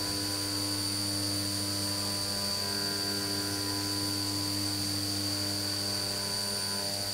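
DN Solutions (Doosan) DEM 4000 CNC mill cutting a chamfer with a 3/8-inch chamfer mill spinning at 6000 rpm under flood coolant: a steady machining hum with a high whine over it.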